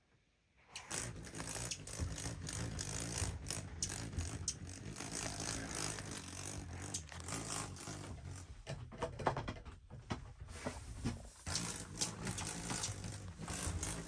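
Rustling and scattered small clicks and knocks of movement and handling inside a small room, over a low rumble, starting about a second in.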